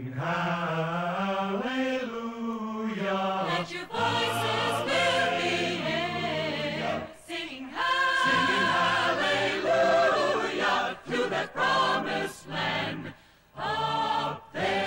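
A choir singing a slow, chant-like song in sung phrases, with several short breaks between phrases in the second half.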